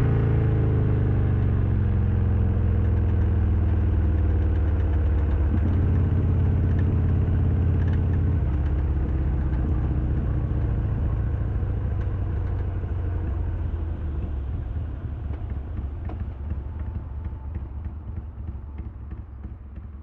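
Harley-Davidson Sportster XL1200R's air-cooled V-twin engine running steadily at low revs, fading away over the last several seconds.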